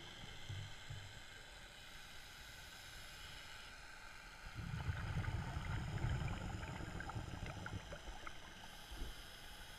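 Underwater sound picked up by a submerged camera: a muffled, steady water noise with faint steady high tones. A low rumble swells for a couple of seconds about halfway through, with scattered small clicks, and a short low thump comes near the end.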